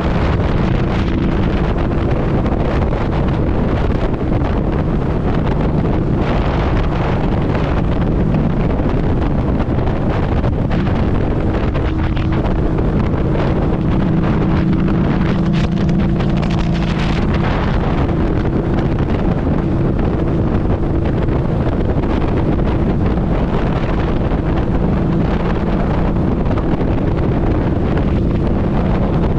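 Harley-Davidson V-Rod's liquid-cooled V-twin engine running at steady cruising speed, largely buried under heavy wind noise on the microphone.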